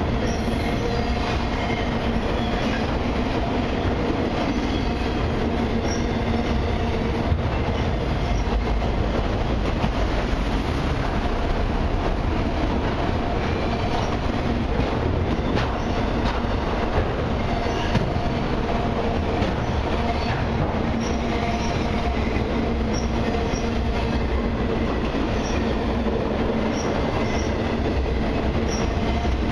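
Autorack freight cars of a CN train rolling past steadily: a continuous rumble of steel wheels on rail with clicking over rail joints. Brief high wheel squeals come now and then, more often in the second half.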